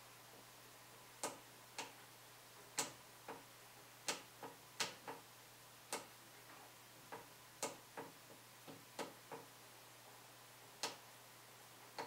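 Asus Crosshair IV Formula motherboard's onboard Start button clicking as it is pressed over and over, about sixteen sharp, irregularly spaced clicks starting a little over a second in: repeated presses to get the board to boot.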